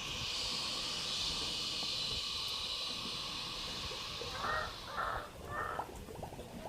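A crow cawing three times in quick succession near the end, after a steady hiss that fades out about four seconds in.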